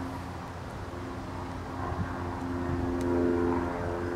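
A steady motor drone at a constant pitch, growing somewhat louder past the middle, with a single light click about three seconds in.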